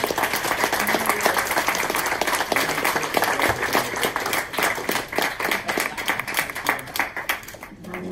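Audience applauding, many people clapping; the clapping thins out and fades near the end.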